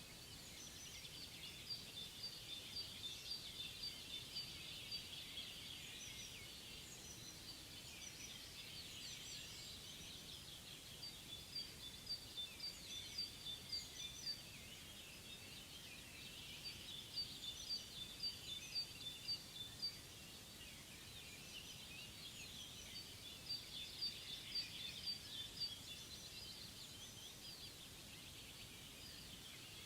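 Songbirds singing in bouts a few seconds long: quick series of high chirps and trills, with short pauses between bouts, over a faint steady background hiss.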